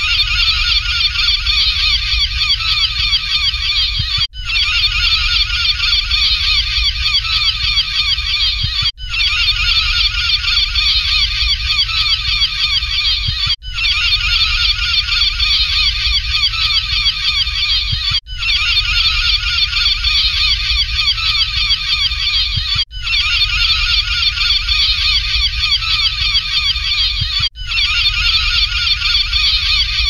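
A dense flock of gulls calling over one another, many overlapping cries at once. A short recording repeats about every four and a half seconds, with a brief gap at each repeat.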